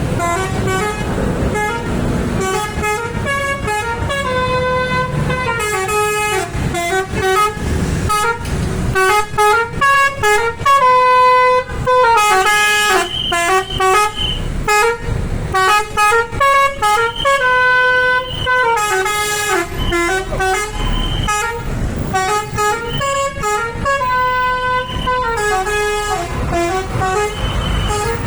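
Telolet bus horn: a tour bus's multi-tone horn playing quick melodic runs of stepped notes, phrase after phrase, over the low rumble of the engine and traffic.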